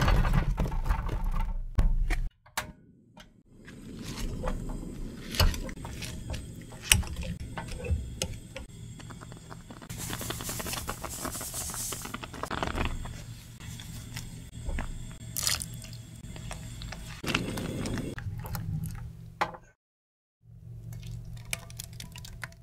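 Fresh strawberries tumble into a ceramic-coated frying pan with a quick run of knocks, then squish and scrape as they are crushed in the pan. About ten seconds in, sugar pours onto the crushed strawberries with a hiss lasting a couple of seconds. Near the end, thick strawberry jam slides out of the pan into a stainless steel tray.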